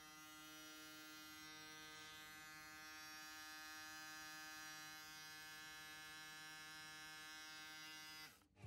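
Panasonic ES-RT37 electric shaver running: a quiet, steady, even hum that cuts off near the end as it is switched off.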